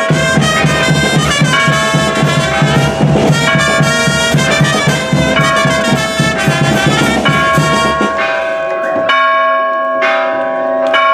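A brass band playing with a bass drum beating steadily, while church bells ring over it. The band stops about eight seconds in, and the church bells ring on alone, struck again a few times.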